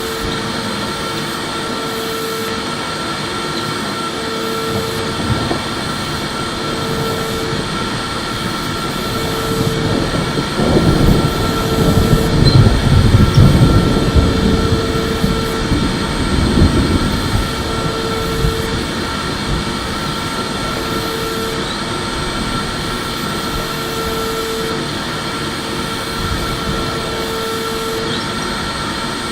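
Electric vacuum cleaner running steadily, a constant rushing of air with a high motor whine and a lower tone that comes and goes every couple of seconds. A deeper, louder rumble swells for several seconds in the middle.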